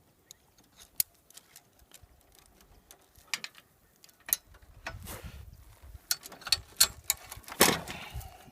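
Metal clicks and clinks of a small chain and snap carabiner being handled and hooked onto a mower's lever linkage. A few separate clicks come first, then denser clinking and handling from about halfway, with the loudest clatter near the end.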